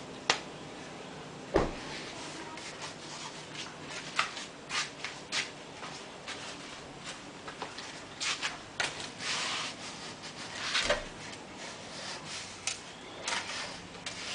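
Handling noise from working on a paddle shaft and its grip: scattered clicks and knocks with a few short rubbing scrapes, the loudest knock about a second and a half in.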